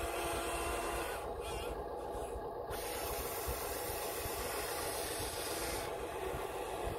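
Radio-controlled scale excavator's small electric motors running with a steady whirring hiss as its boom and bucket move.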